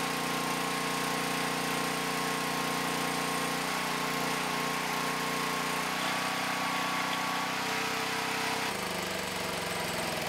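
Portable generator's small gasoline engine running steadily on jet fuel. Its engine note shifts a few times, about four, six and nine seconds in.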